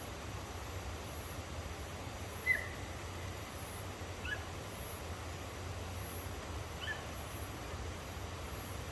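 Three short, high-pitched animal cries in the dark, about two seconds apart, the first the loudest, over a steady background hiss.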